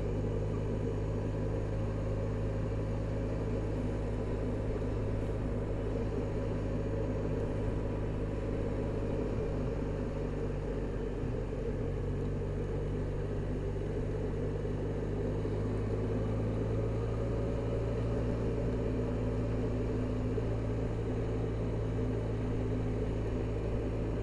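Motor scooter engine running steadily while riding at town speed, with road and wind noise. The engine note shifts slightly partway through.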